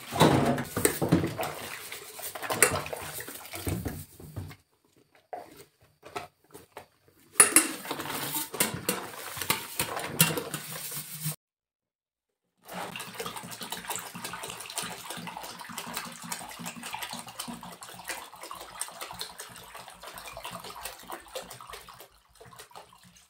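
Pots and dishes clattering and knocking while utensils are washed at a kitchen sink. After a short silence, a steady stream of water pours from a plastic jerrycan into a plastic basin.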